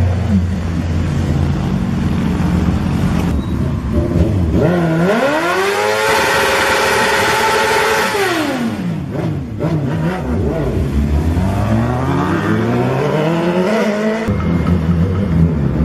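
Motorcycle engine revving hard: the pitch climbs steeply, holds high for a couple of seconds, falls back, then climbs again, with an abrupt jump in the sound near the end.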